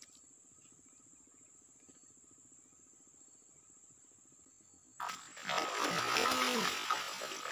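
Steady high insect buzz, then, about five seconds in, sudden loud splashing and churning of water as a hooked toman (giant snakehead) thrashes at the surface.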